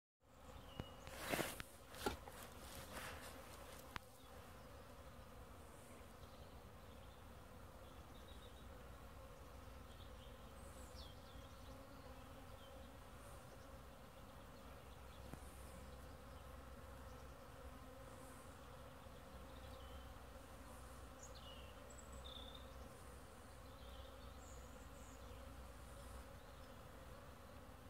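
Faint, steady buzzing of Buckfast honeybees flying in and out at the hive entrance on a winter cleansing flight. A few sharp knocks sound in the first few seconds.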